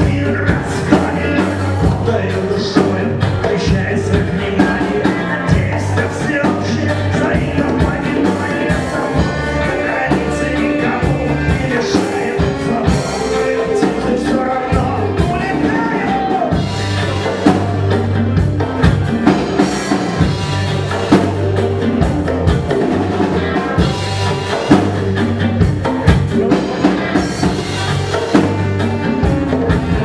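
Live rock band playing: a man singing into a microphone over electric guitar, drum kit, congas and saxophone.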